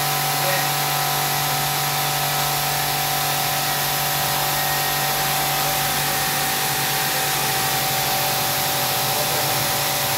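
Skin packing machine running its vacuum cycle: the steady hiss and hum of its vacuum pump drawing the plastic film down tight over the product on the card.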